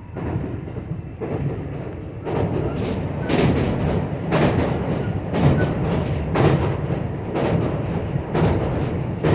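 JR West 225 series electric train running along the line, a steady rumble with wheels clacking over rail joints about once a second.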